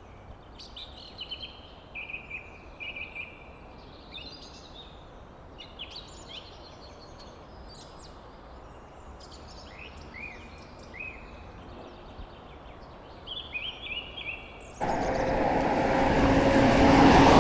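Small songbirds chirping and singing in short phrases over a faint steady background hiss. About fifteen seconds in, this cuts suddenly to a much louder, steady rushing noise with a low hum running through it.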